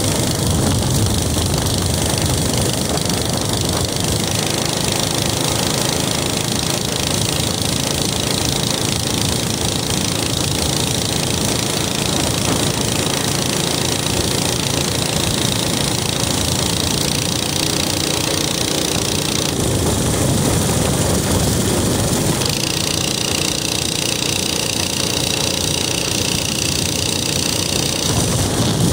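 Minibike's small engine running steadily at cruising speed, with wind and road noise rushing over it. A higher whine joins in for several seconds near the end.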